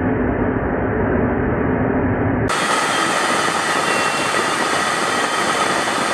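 Steady jet aircraft noise in flight. It starts as a dull, muffled rumble and changes abruptly about two and a half seconds in to a brighter, hissing roar with a thin steady whine.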